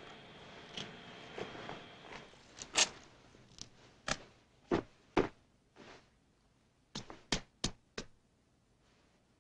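A series of sharp knocks and thuds, about a dozen, unevenly spaced, with the loudest a few seconds in and a quick run of four near the end.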